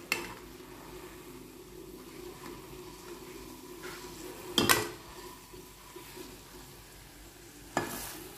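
Spatula and spoon knocking and scraping against a kadhai as a whole tandoori-marinated chicken is turned over in it, over a faint sizzle. There is one sharp clatter about halfway through and another near the end.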